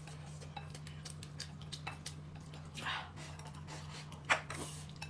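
Quiet eating at a table: scattered soft clicks and taps of chopsticks and dishes, over a steady low hum.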